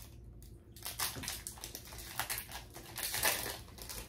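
Foil wrapper of a Pokémon trading-card booster pack crinkling as it is torn open and the cards are pulled out, loudest about three seconds in.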